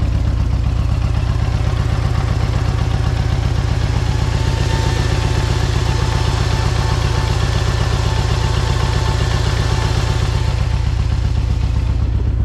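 Harley-Davidson Road Glide's V-twin engine idling steadily, hot from a sustained idle test, with an even low firing pulse.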